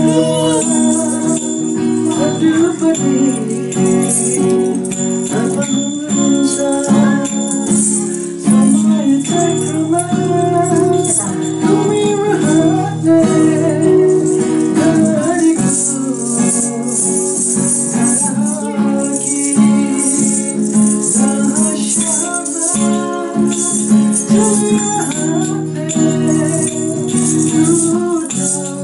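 Acoustic guitar strummed while a young man and a young woman sing together, with a small hand-held rattle shaken in time.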